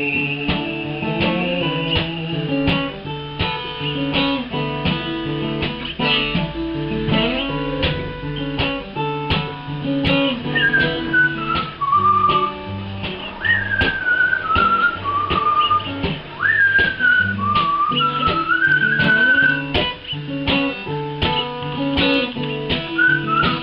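Acoustic guitar strummed steadily, and from about ten seconds in a melody whistled over it in short sliding, falling phrases.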